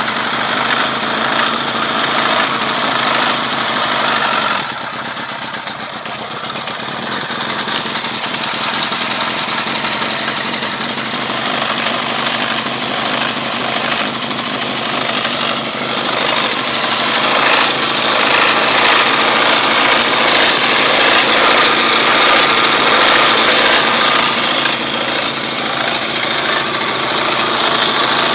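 Honda CBR1000 motorcycle's inline-four engine running steadily, close up. The sound dips briefly about four seconds in, then slowly grows louder and holds.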